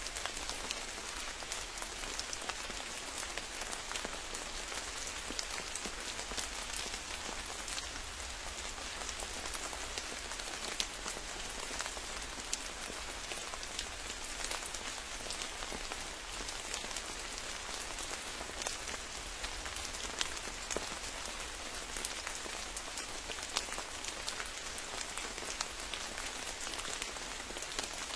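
Steady rain falling on a forest, a continuous hiss with many close drops ticking on leaves and a faint low rumble underneath.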